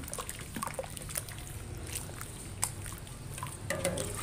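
A hand squishing and working a thick flour-and-milk batter in a large pot, with scattered small wet clicks as the lumps of maida are broken up. Right at the end, milk starts pouring into the pot.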